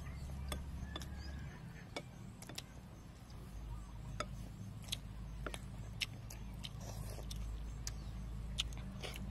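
Eating sounds: a dozen or so short sharp clicks of spoons against a soup bowl and lip-smacking chewing, scattered irregularly, over a steady low rumble.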